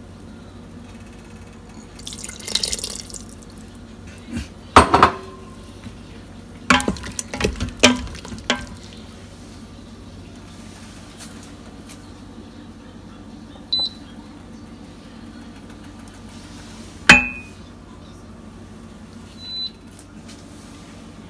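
Tamarind juice splashing into a pot of sambhar, then a run of knocks and clatter as a wooden spoon stirs in the Instant Pot's steel inner pot, and one sharp clink of a glass lid late on.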